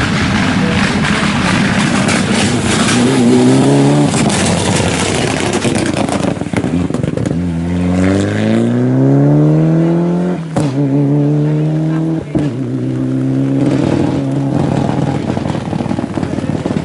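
Mitsubishi Lancer Evolution rally car's turbocharged four-cylinder engine passing hard on a wet road, with the hiss of tyre spray. It then accelerates away, its note climbing steeply, and breaks off twice briefly at quick gear changes before settling into a steady drone.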